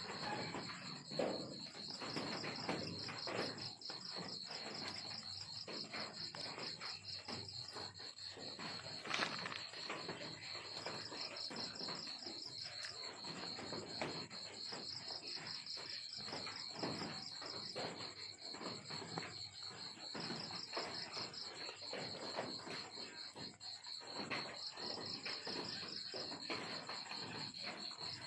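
Cricket chirping in runs of rapid, high-pitched pulses, repeating steadily, over irregular soft clicking and rustling.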